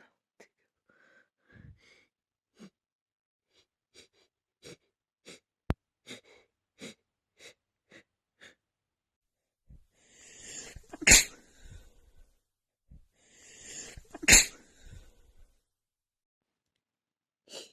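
A woman's sneeze buildup: a run of short catching breaths about twice a second, then two loud sneezes about three seconds apart, each preceded by a rising inhale.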